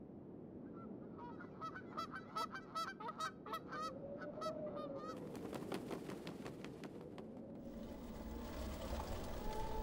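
Short honking bird calls in a rapid series, about three a second, for a few seconds, followed by a steady hiss.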